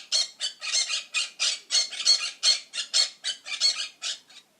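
Parrot squawking: a fast run of harsh, rasping calls, about four a second.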